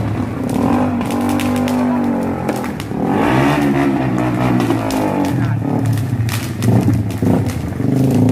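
An engine running and revving, its pitch rising and falling, with scattered sharp pops or clicks.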